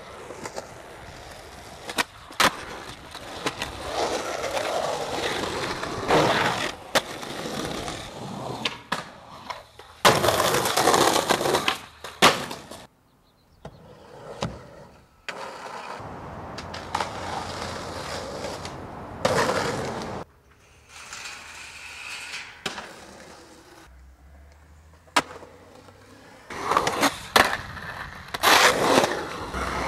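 Skateboard wheels rolling on concrete and ramp surfaces, broken by sharp clacks of tail pops and board landings. The rolling cuts off abruptly a few times.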